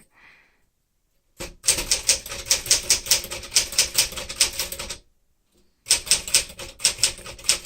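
Keys of a 1964 Smith-Corona Sterling manual typewriter striking the paper in quick, even typing, about five or six strokes a second. The typing starts about a second and a half in and stops briefly near the five-second mark before picking up again.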